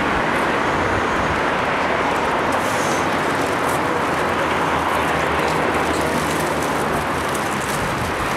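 Steady noise of heavy road traffic, cars passing on a busy multi-lane avenue.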